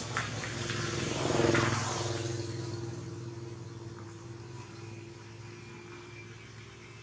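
A motor vehicle engine passing by, growing louder to a peak about a second and a half in and then fading away.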